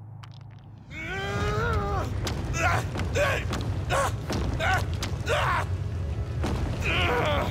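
A voice actor's strained, wordless groans and cries: one long wavering cry about a second in, then a string of short, effortful grunts, over a steady low rumble.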